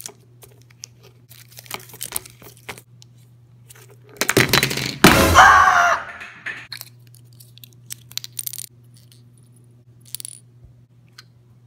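Small hard plastic clicks and clinks as plastic cake-decorating tips are handled and set on a stone countertop, with a loud rough burst of handling noise lasting about two seconds, starting about four seconds in.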